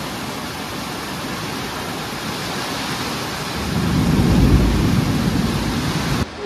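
Heavy rain pouring steadily, with a deep rumble of thunder swelling up about halfway through and dying away.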